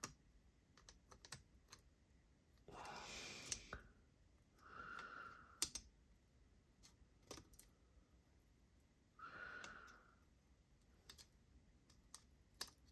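Faint, scattered light clicks and taps of small metal folding-knife parts being handled and fitted by hand during reassembly of the crossbar lock. Three short breaths are heard, about three, five and nine seconds in.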